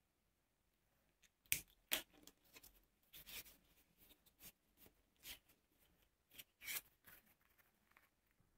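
Hands handling and folding small pieces of black leather, giving a run of irregular sharp clicks and crackles that starts about a second and a half in.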